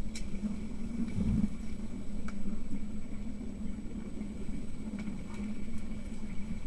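Muffled underwater pool ambience picked up by a submerged camera: a steady low rumble with a few faint clicks and knocks from the players moving in the water.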